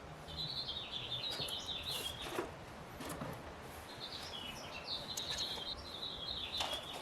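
A small songbird singing two warbling phrases of about two seconds each, with faint clicks and rustles of packaging being handled between them.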